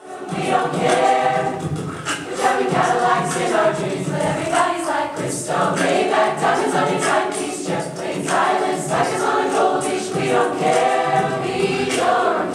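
Mixed-voice chamber choir singing, young men's and young women's voices together.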